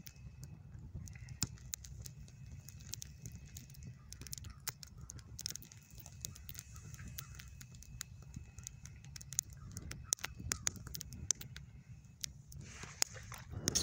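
Open fire burning around a snowball lying on the snow: a steady low rush of flame with many scattered sharp crackles and pops.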